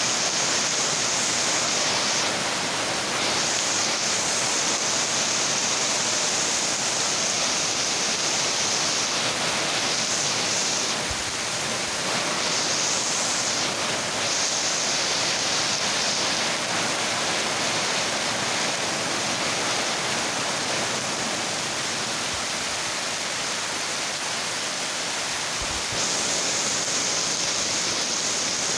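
Heavy tropical rain falling: a steady, dense hiss of rain, easing slightly for a stretch in the middle.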